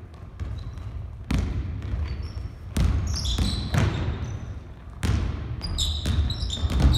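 Basketball bouncing on a hardwood gym floor in separate thumps, with sneakers squeaking on the court from about three seconds in as players run.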